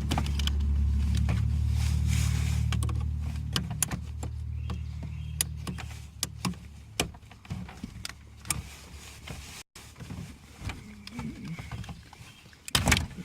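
Sharp plastic clicks and snaps of wiring connector tabs being worked loose and unplugged from a car's power window master switch. A low steady hum runs under the first half and fades out.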